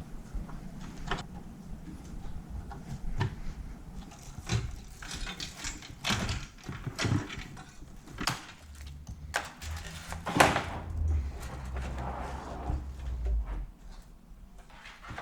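Hands handling a computer power supply and its cables inside a PC case: irregular clicks, knocks and rustling, with the loudest knock about ten seconds in.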